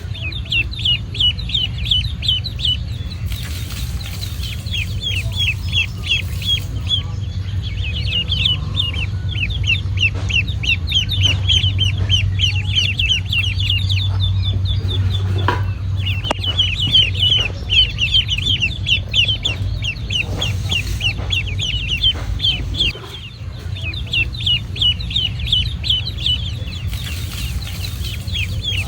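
Ducklings peeping rapidly and almost without pause in high, short calls, with a few light taps in the middle and a steady low hum beneath.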